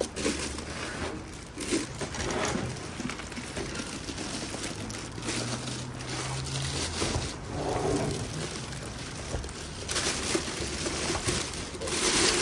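Plastic packaging crinkling and rustling as a wrapped stand mixer is handled and pulled out of a cardboard box, louder near the end.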